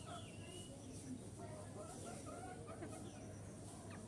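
Chickens clucking, with many short calls overlapping and scattered throughout.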